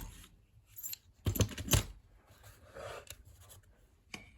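Small metal clicks and clacks from a lever lock and keys being handled: a cluster of three or four sharp clicks about a second and a half in, with single clicks before and near the end.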